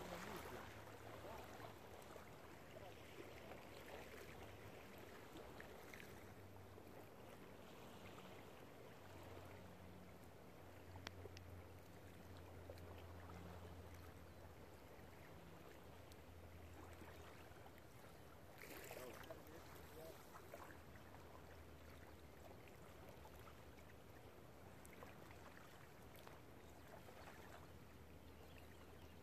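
Near silence: faint outdoor background noise with a low hum that comes and goes, and a brief rustle about nineteen seconds in.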